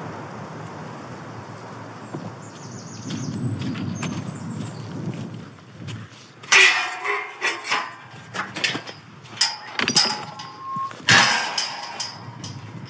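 Galvanised steel field gate being unlatched, swung and shut: a run of metal clanks and rattles with brief ringing tones, starting about halfway through and loudest there and again near the end.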